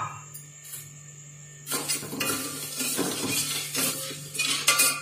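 Steel ladle stirring sugar into water in a stainless steel pot, scraping and clinking against the metal. The stirring starts a little under two seconds in, as the sugar is dissolved for syrup.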